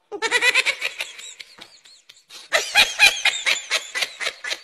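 An animal's rapid, repeated high squeaks, about eight a second, in two runs with a short break about two seconds in.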